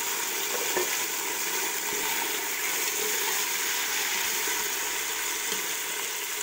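Raw chicken pieces sizzling in hot oil with fried onions in a steel pot, a steady hiss, as they are stirred with a metal slotted spoon.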